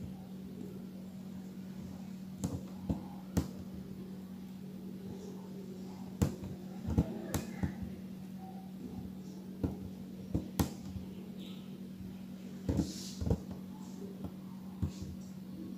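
Light, irregular clicks and taps of beads and needle while sugar beads are stitched onto fabric by hand, about a dozen in all, some in quick pairs. A steady low hum runs underneath.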